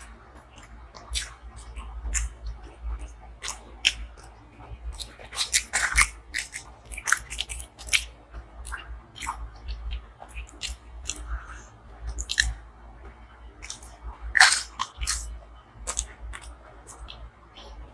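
Close-miked mukbang eating sounds: a person chewing and biting, with frequent irregular sharp crunches and mouth clicks, the loudest about fourteen and a half seconds in, over a faint low steady hum.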